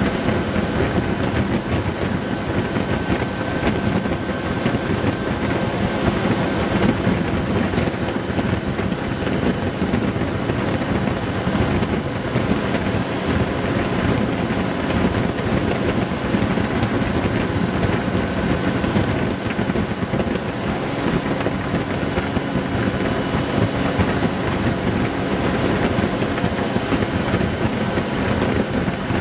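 Honda Gold Wing GL1800's flat-six engine running steadily at highway cruising speed, mixed with wind rushing over the microphone.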